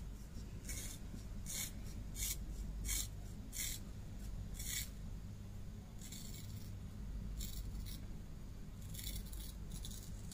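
Scissors cutting through a thick ponytail of long hair: about a dozen separate crunching snips, roughly one a second at first and more spaced out later.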